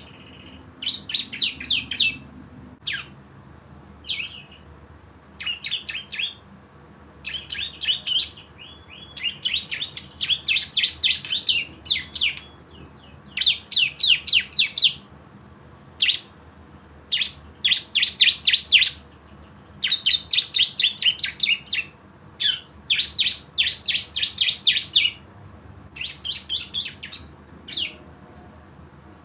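A ciblek (prinia) singing its rapid 'ngebren' song, the fast Bren-gun-like trill. Bursts of quick, high chattering notes repeat over and over with short pauses between them.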